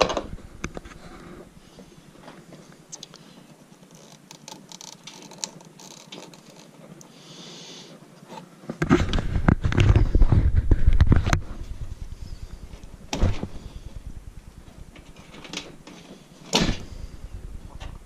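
Handling noises from hands working the wiring and sheet-metal cabinet of a heat pump's indoor air handler: scattered clicks and knocks, with a louder stretch of clatter from about nine to eleven seconds in and single sharp clicks after it.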